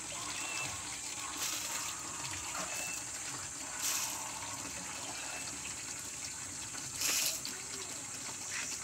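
Water pouring from a small plastic watering can onto plants and soil, with louder gushes about four seconds in and again about seven seconds in.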